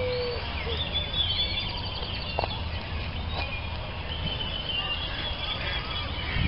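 Small birds chirping and twittering, many short high calls overlapping, over a steady low rumble.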